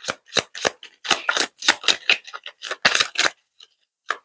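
A tarot deck being shuffled by hand: a quick, uneven run of crisp card snaps and slaps, about four a second.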